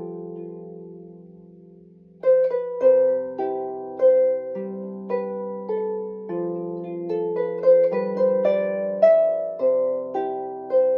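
Marini bass lap harp being plucked by hand: a chord rings and fades for about two seconds, then a slow melody of plucked notes, about two a second, resumes over low notes that ring on beneath it.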